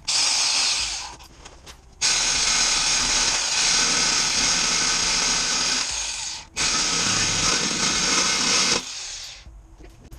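Power tool cutting through a welded-in steel exhaust pipe under a car: a short burst, then two longer runs of about four and two seconds with a brief stop between them, each cutting off sharply and winding down near the end.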